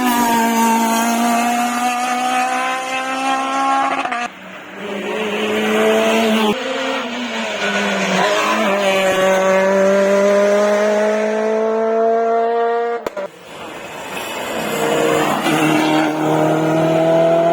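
Rally cars accelerating hard on a stage, each engine note climbing steadily in pitch through a gear; the sound breaks off abruptly three times as one pass gives way to another.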